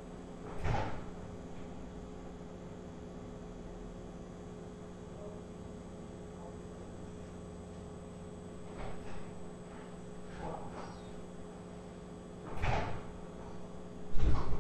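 Steady low electrical hum with a few scattered knocks and thumps, then two louder bangs near the end, fitting a house door being opened and shut.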